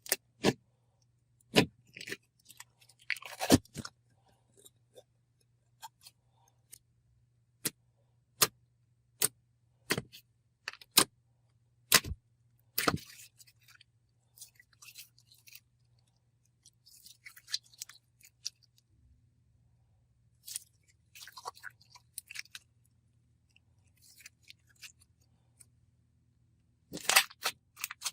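Hands pressing and pulling a stiff, putty-like clear slime, making a string of sharp pops and clicks as trapped air bursts. Softer crackling follows in the second half, with a louder crackly burst near the end.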